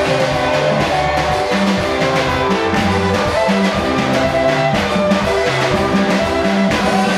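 Upbeat gospel praise music from a live church band: drum kit and guitar over a repeating bass line, playing steadily.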